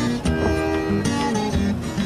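Instrumental background music with plucked strings, notes changing in steps.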